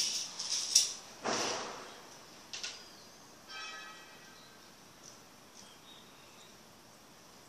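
Berimbau being handled and set down after playing: a sharp click, then a knock with a short low resonance about a second in. A brief ringing tone follows a couple of seconds later, then only faint movement.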